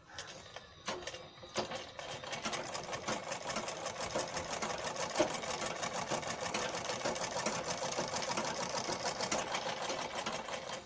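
Domestic sewing machine stitching a seam. A few separate clicks at first, then rapid, even needle-and-feed ticking that runs steadily and stops abruptly near the end.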